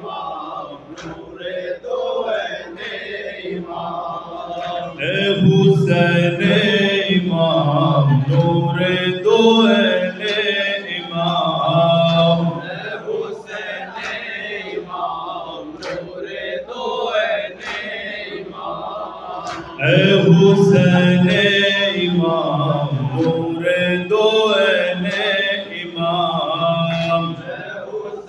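A noha, an Urdu lament, chanted by a group of men in unison behind a lead voice on a microphone, swelling louder about five seconds in and again about twenty seconds in. Scattered sharp slaps run under the voices, the chest-beating of matam.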